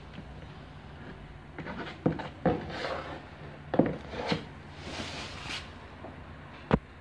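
Metal putty knife scraping wet wall filler across a patched wall in several strokes, with a few sharp knocks of the knife between them.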